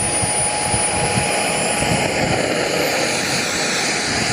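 A model aircraft flying, its engine a steady drone over the field, with wind buffeting the microphone.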